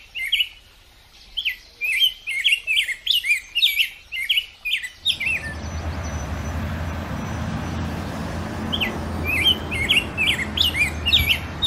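Small birds chirping in quick, repeated short notes. About five seconds in a steady rushing noise with a low rumble comes in beneath them, and the chirping picks up again near the end.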